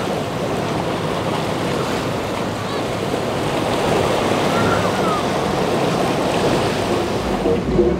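Steady wash of surf and rushing water with wind on the microphone, and boat engines running underneath.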